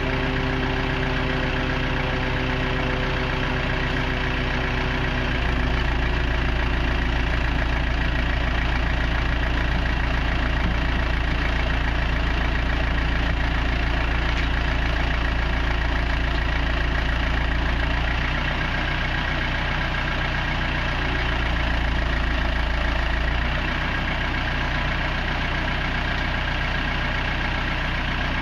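Telescopic handler's diesel engine running steadily at idle. It runs a little louder from about five seconds in until about eighteen seconds, and again briefly a few seconds later.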